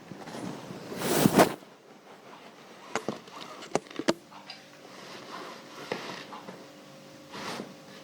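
Clothes being ironed: a loud swish of the iron or cloth about a second in, then a few sharp knocks and clicks as the iron is handled, with softer rustling swishes after.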